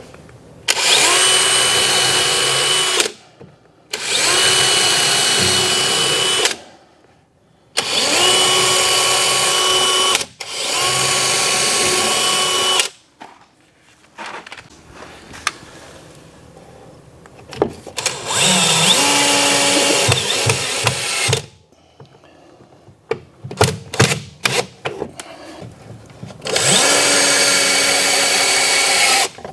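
DeWalt 20V cordless drill driving screws through particleboard cabinet sides to join them: six runs of two to three seconds each, the motor whine climbing in pitch at the start of each run and then holding steady. Light clicks and knocks from handling come in the gaps between runs.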